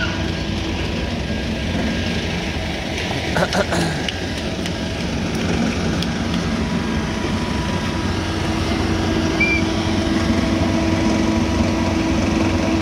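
Parked soft-serve ice cream van's engine running steadily, a constant hum with a few held tones that grows a little louder as the van gets closer. A short burst of knocks about three and a half seconds in.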